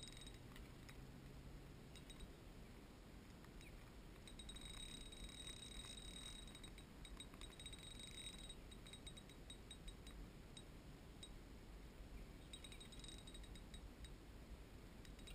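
Near silence, with a faint low rumble and faint rapid ticking from about four to eight seconds in and again briefly near the end.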